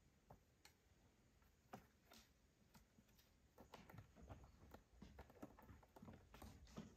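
Faint, scattered taps and clicks of a kitten pawing and climbing on a plastic toy car, growing more frequent about halfway through.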